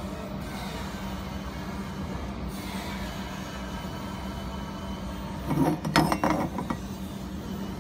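Steady low hum of a running handheld fiber laser welding machine, with a short burst of metallic clinks and rattling about five and a half seconds in that lasts about a second.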